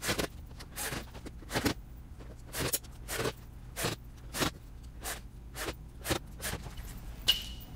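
A quick series of short scrapes and knocks, about two a second, from working under a folding table with a cordless drill and drywall screws, driving them up through the plastic table top into the wooden door laid on it.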